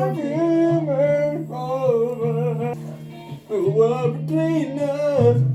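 Background song with singing over a guitar and a sustained bass note.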